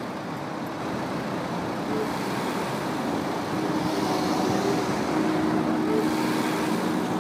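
Steady city street traffic noise, slowly growing louder.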